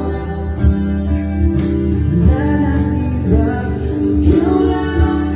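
Live acoustic music: an acoustic guitar played with regular hand-drum hits from a cajón, the percussive hits standing out at even intervals.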